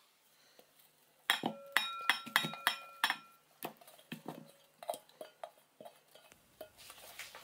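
A stainless steel bowl and a glass mixing bowl clinking together as steamed taro slices are tipped and scraped from one into the other: a quick run of clinks about a second in with a brief ringing tone, then lighter knocks and clicks.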